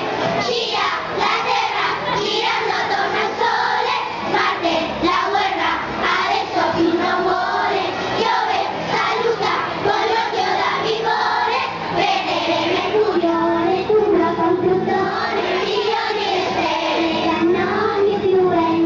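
School children's choir singing a song in Italian, amplified through hand-held microphones.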